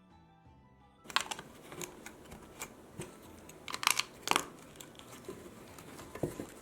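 Plastic Lego plates being handled and pressed together: irregular sharp clicks and clatter with rustling between, starting about a second in.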